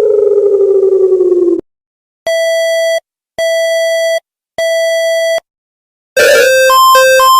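Electronic emergency-alert tones. A falling tone cuts off suddenly, then three identical steady beeps sound evenly spaced. Near the end an alarm tone starts, alternating quickly between a low and a higher pitch.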